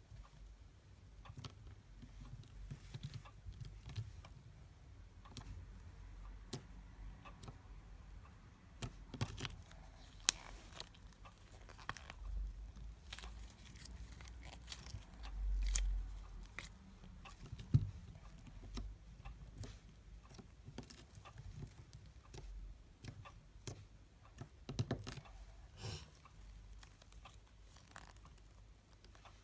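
Hands squishing, stretching and poking smooth putty, making scattered small sticky clicks and pops, with a brief low rumble of handling about halfway through.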